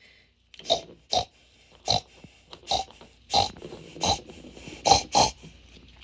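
Pig grunts and snorts, about ten short ones in a row, roughly two a second.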